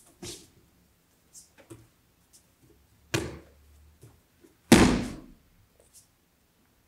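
Thuds of bodies falling onto judo tatami mats as aikido partners are thrown: a light one at the start, a heavier one about three seconds in, and the loudest near five seconds, a full breakfall.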